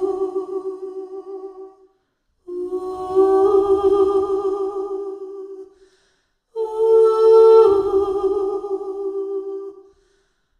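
A voice humming three long held notes, each fading away before a short pause and the next; the third starts higher, and its upper tones slide down about halfway through.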